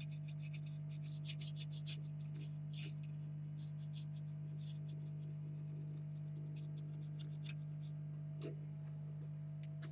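Small scratching and clicking of hands working on computer hardware, rapid at first and then sparser, with a small knock near the end, over a steady low electrical hum.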